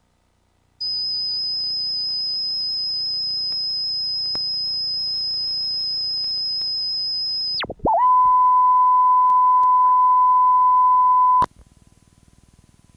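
Electronic line-up test tones on a satellite TV news feed. A high-pitched steady tone runs for about seven seconds. After a short dip, a louder, lower steady tone, the standard reference tone that goes with colour bars, holds for about three and a half seconds and then cuts off suddenly, leaving faint hiss.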